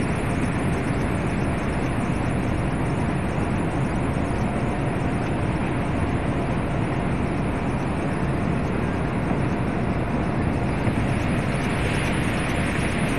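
Steady rushing noise of a running rooftop cooling tower, its fan and falling water, with a faint steady machine hum underneath.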